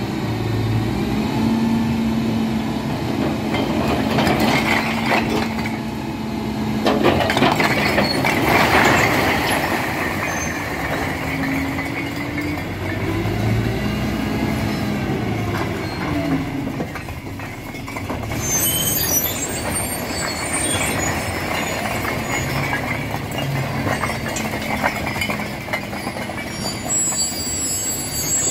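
Dump truck's diesel engine running and rising and falling in pitch as the hydraulic hoist tips the bed, with a load of fired bricks sliding off and clattering onto the pile.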